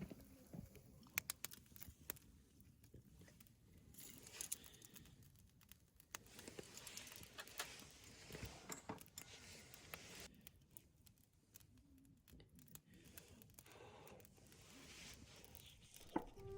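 Faint rustling with scattered sharp clicks, as of things being handled close by.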